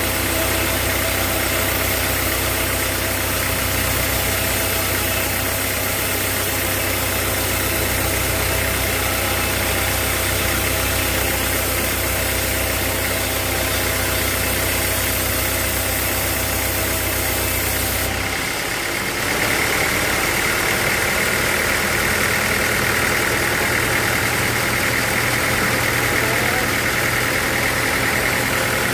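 Sawmill machinery running steadily with an engine-like hum. About two-thirds of the way in the sound changes abruptly: the low hum drops away and a higher whine takes over.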